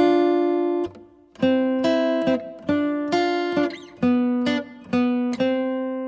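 Background music: guitar chords strummed one after another, each fading before the next, with the last chord ringing on near the end.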